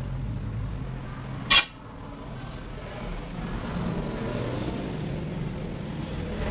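Steady low rumble like a running engine or traffic, with one short, sharp, loud knock about one and a half seconds in.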